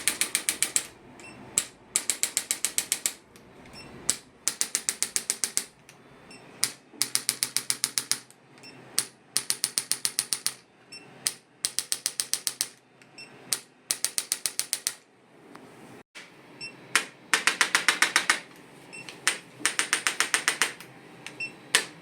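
Chiropractic adjusting gun delivering adjustment impulses: rapid clicks, about ten a second, fired in bursts of about a second with short pauses between.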